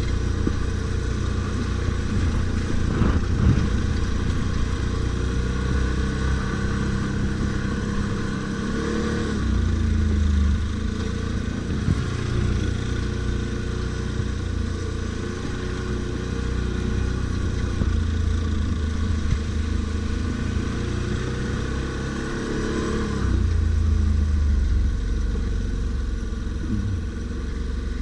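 Stels Guepard 850 ATV engine running under way off-road, its pitch rising and falling with the throttle, with louder bursts of acceleration twice.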